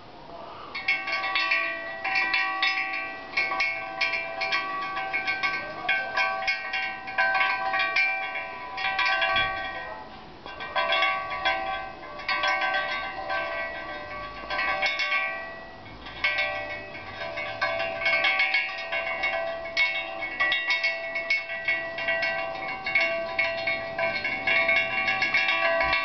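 Hanging piece of WW2 warplane wreckage, a twisted strip of riveted metal skin, ringing with several clear bell-like tones. Quick strikes keep the ringing going almost without a break, with short lulls about ten and fifteen seconds in.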